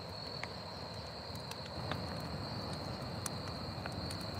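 Crickets trilling steadily with a high, even note, and a wood campfire giving a few faint, sharp crackles.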